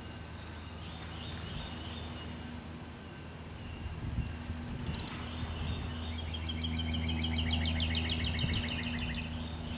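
Wild songbirds calling: a single sharp high chirp about two seconds in, then a rapid trill of short falling notes, about six a second, for some three seconds near the end. Under them runs a steady low hum that grows louder.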